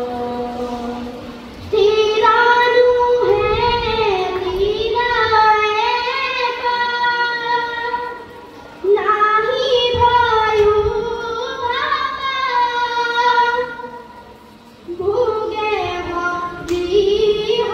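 A boy sings a devotional song solo into a microphone in long, drawn-out melodic phrases. New phrases begin about two, nine and fifteen seconds in, each after a short pause.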